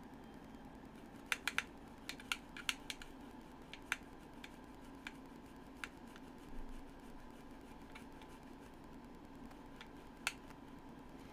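A scattering of small sharp clicks and taps, several close together in the first few seconds and a single louder one near the end, over a steady low hum.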